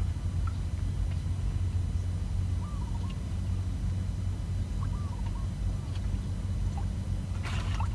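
Outdoor pond-side ambience: a steady low rumble, with a small bird chirping faintly a few times about three and five seconds in. A brief rustle comes near the end.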